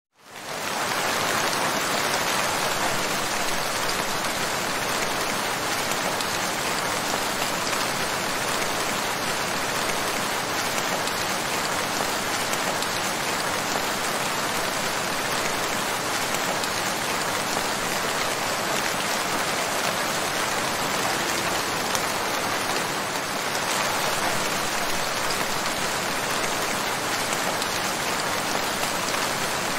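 Steady, heavy rain falling, a dense even hiss of drops on surfaces. It fades in quickly at the very start.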